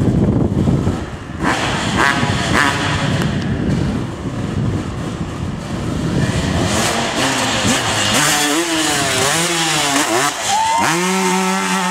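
Kawasaki KX250 dirt bike engine running hard on approach, then revving up and down in several quick swings before it is held at a steady high pitch near the end as the bike hits the ramp and takes off.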